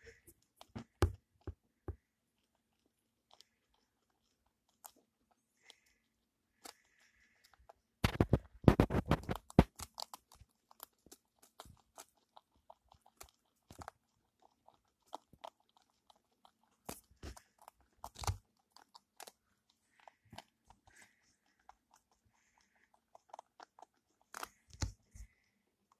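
Guinea pigs chewing and crunching dried herbs: scattered short crunches, with a dense run of crunching about eight to ten seconds in that is the loudest part.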